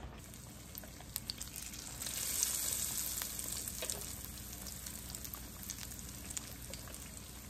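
Batter-coated zucchini strips shallow-frying in hot oil in a pan: a steady sizzle with scattered pops and crackles, growing louder about two seconds in and then easing back.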